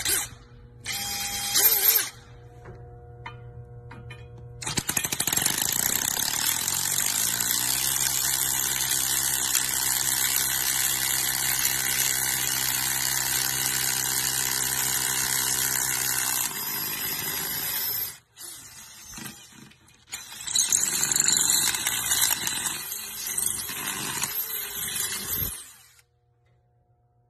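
Bosch 18V Chameleon Flexiclick drill/driver with its SDS-plus rotary hammer attachment, hammer-drilling into concrete. It runs in two long stretches, the first about thirteen seconds and the second about five, and then stops.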